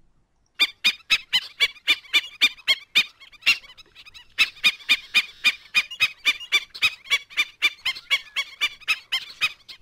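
Recorded black-necked stilt calls: a rapid series of sharp, high-pitched yapping notes, about four a second, with a short break about four seconds in. A run like this is typical of an alarmed stilt.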